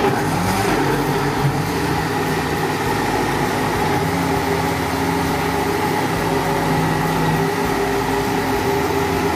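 Countertop blender motor running steadily at high speed, puréeing cooked butternut squash soup in its plastic jug.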